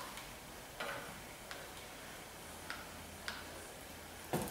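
Scattered light clicks and taps at uneven spacing, with a louder, heavier knock near the end, from parts and tools touching as an engine is worked into place.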